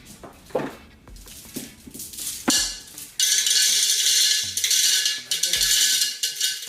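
A few light knocks, then glass marbles poured into a pot, rattling continuously for about three and a half seconds.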